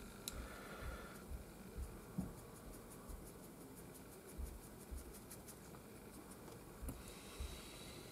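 Faint handling sounds of a fine paintbrush working oil paint over a small figure bust: light scratching strokes, with irregular soft bumps from the hands and handle.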